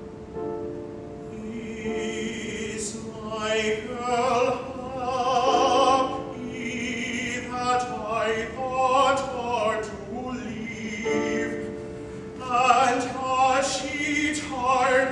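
Classical tenor singing an art song in full voice with vibrato, over piano accompaniment. The piano is heard alone for about the first second, before the voice comes in.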